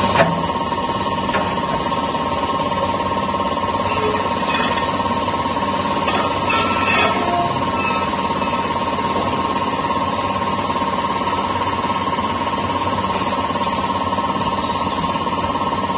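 Leaf spring drilling machine running: a steady mechanical noise with a constant whine throughout.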